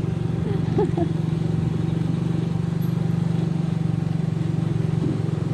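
A motor vehicle's engine running steadily at an even pitch, with a rapid, even firing pulse, while travelling along the road.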